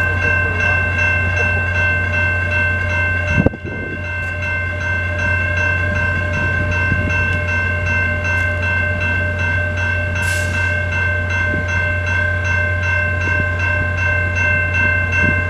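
Level-crossing warning bell ringing in rapid, even strokes, over the low steady drone of a diesel passenger locomotive idling at the station. A brief knock comes about three and a half seconds in.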